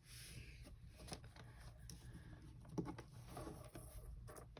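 Faint handling sounds of a paper-and-Q-tip craft at a table: soft rustles and a few light clicks and taps.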